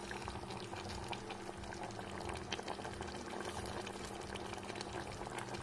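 Chicken curry simmering in an aluminium pressure-cooker pot, a faint steady bubbling with many small pops, over a low steady hum.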